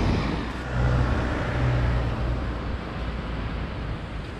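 Cars passing on the road alongside: engine hum and tyre noise that swell about a second in, then fade away.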